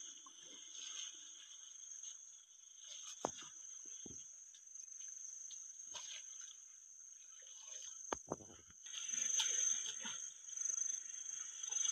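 Steady high-pitched insect chorus. A few sharp knocks come about three, four and eight seconds in, and a louder stretch of irregular noise begins about nine seconds in.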